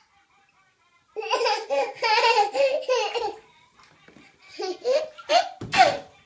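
Baby laughing in bouts of giggles, starting about a second in, with a louder burst near the end.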